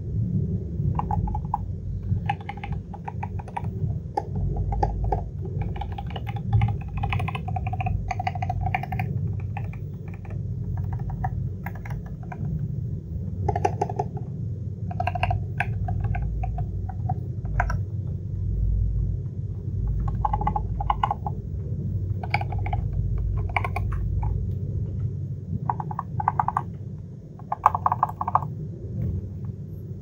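Typing on a Lofree 1% transparent mechanical keyboard: runs of keystrokes clicking in quick clusters with short pauses between them, over a steady low rumble.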